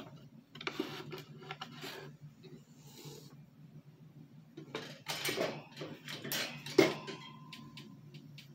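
Two bouts of scraping and rustling, the second ending in a sharp click, over a steady low hum.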